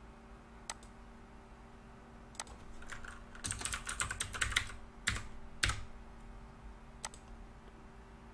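Computer keyboard typing: a quick run of keystrokes in the middle, with a few single clicks spread before and after.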